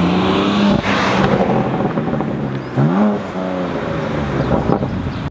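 BMW M2 Competition's twin-turbo 3.0-litre inline-six revving hard through a deep, muscly exhaust note as the rear tyres spin, with tyre noise underneath. The revs dip about a second in and rise sharply again just before three seconds.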